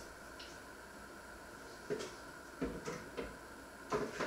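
A few light knocks and clicks of things being handled in a kitchen, about two seconds in, around three seconds in and again near the end, over a faint steady hum.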